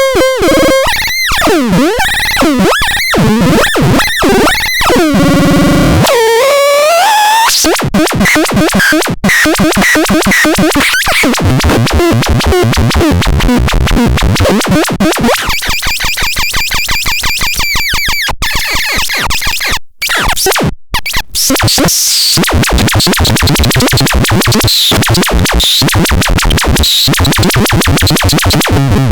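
BUMTRON miniature drum synthesizer playing harsh, noisy electronic tones that swoop up and down in pitch, then break into fast stuttering pulses, with a couple of brief cut-outs about two-thirds of the way in.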